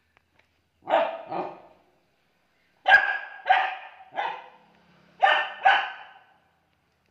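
Dog barking: seven short barks in three groups, two, then three, then two.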